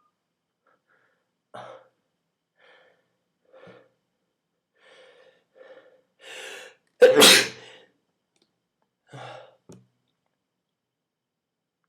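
A person sneezing: a run of short catching breaths building up, then one loud sneeze a little after the middle, followed by two short breaths near the end. The sneeze is brought on by tickling the inside of the nose with a twist tie.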